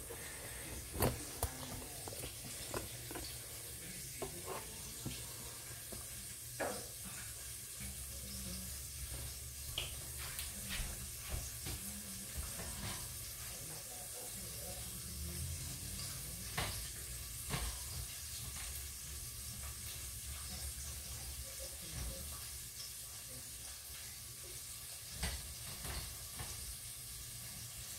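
Hot frying grease sizzling faintly on the stove, with scattered small clinks and taps of utensils against pots and a low steady hum underneath.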